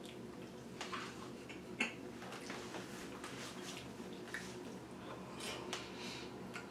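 Faint clicks and scrapes of a metal utensil scooping food out of an instant noodle snack pot, with a sharper click about two seconds in.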